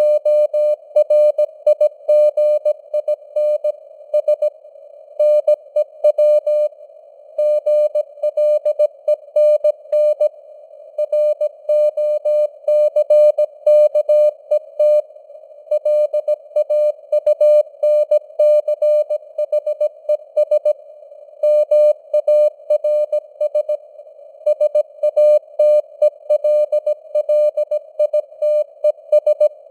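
Morse code at 17 words per minute: a steady tone of about 600 Hz keyed on and off in short and long beeps, over a narrow band of simulated radio hiss with slowly varying signal strength (QSB).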